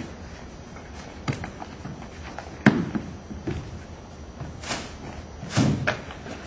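Scattered knocks and thumps as an actor handles props on a stage, the loudest a single thud nearly three seconds in, with a brief rustle and a couple more knocks near the end.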